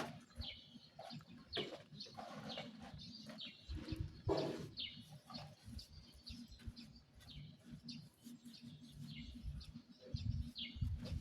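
Birds chirping: scattered short calls, several a second at times, over a low rumble.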